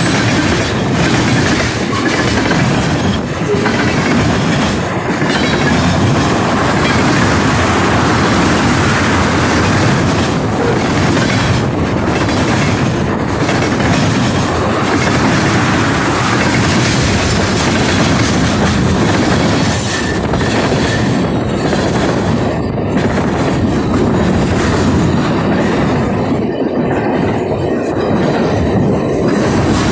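A train's cars rolling past close by, wheels clicking and clattering over the rail joints and the crossover switch in a steady stream.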